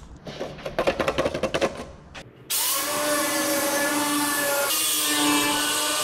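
A quick run of clicks and rattles, then about two and a half seconds in a high-speed power tool starts abruptly and runs on steadily with a whine, to cut a patch blank along a scribed outline in 1 mm cold-rolled steel sheet.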